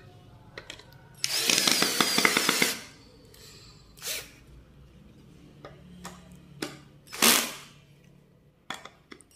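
Makita-branded mini cordless drill-driver driving a wood screw into two pieces of wood, with a loud run of about a second and a half a little after the start. A few short, sharp bursts follow later.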